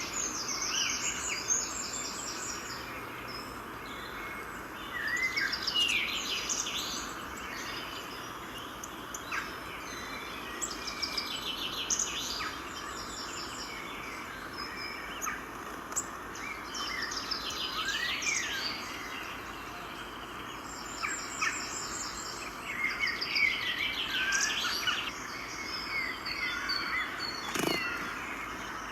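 Small birds chirping and singing: many short chirps and quick sweeping notes, some overlapping, over a steady outdoor background hiss.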